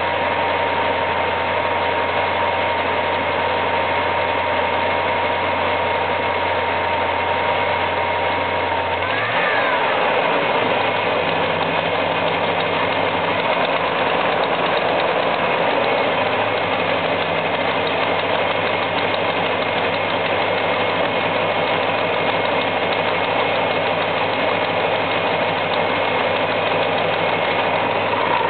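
1973 Buick LeSabre V8 engine idling with a ticking noise whose cause is not yet known. The engine note rises and falls briefly about nine seconds in, then settles back to a steady idle.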